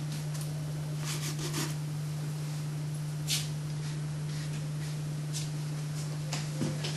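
Paintbrush dragged across watercolour paper in several short, scratchy dry-brush strokes, over a steady low hum.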